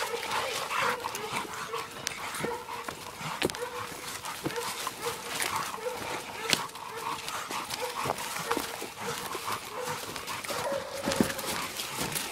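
Hog dogs baying, barking over and over at about one bark a second: the sound of dogs holding a wild hog at bay.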